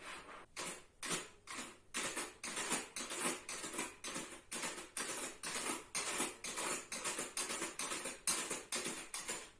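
Accordion imitating a galloping horse: a run of short, percussive, breathy hoofbeat strokes that start slowly and speed up to about three or four a second.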